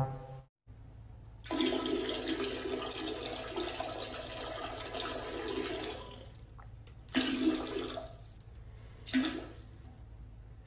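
Toilet flushing: a loud rush of water lasting about four seconds that then fades, followed by two shorter gushes.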